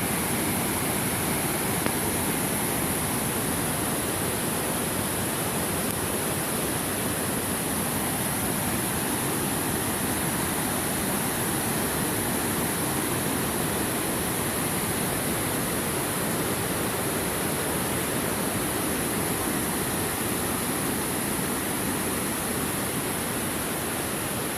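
Waterfall, falling water making a steady, unbroken rush with a high hiss on top.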